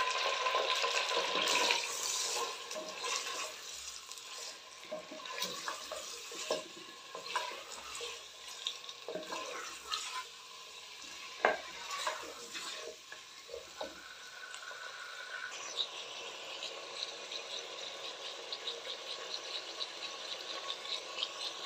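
Chicken pieces frying in hot oil in a clay handi, sizzling loudest in the first two seconds right after they go in. A wooden spoon stirs them, with repeated scrapes and knocks against the clay pot. From about fifteen seconds in the sizzle settles into a steady fine crackle.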